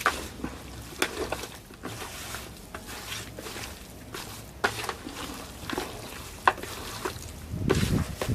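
A spoon scraping and knocking against a pot as seasoned chicken is stirred, in scattered sharp clicks a second or so apart.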